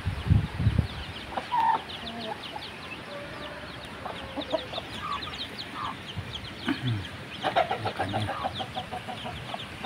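Bangkok fighting chickens clucking: short single calls here and there, then a quick run of clucks near the end. There are a few dull low thumps in the first second and faint quick high chirps in the background.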